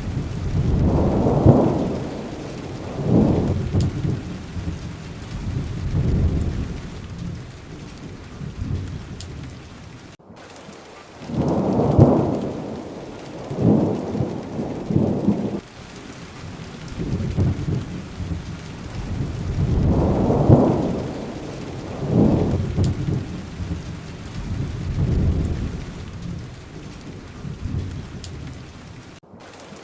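Steady rain with thunder rumbling low in repeated rolling swells every few seconds. The sound drops out for a split second twice, about ten seconds in and again near the end.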